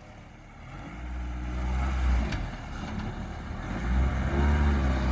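Engine of a swapped all-wheel-drive Honda Civic pulling as the car accelerates. It comes in about a second in, eases off, then pulls harder again near the end.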